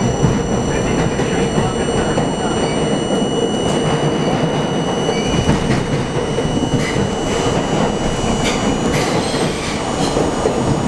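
NYC Subway R32 train running through a tunnel, heard from inside the car: a steady loud rumble of wheels on rail with thin high whines. Sharp clicks over rail joints come several times in the second half.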